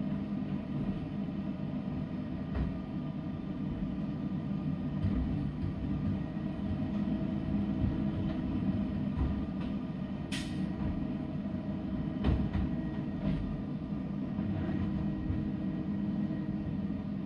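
Garbage truck's engine and hydraulic pump running steadily while the rear cart tipper lifts and dumps a recycling cart, with scattered knocks and clanks of cart and metal. A brief high squeal comes about ten seconds in, and the loudest bang about two seconds after it.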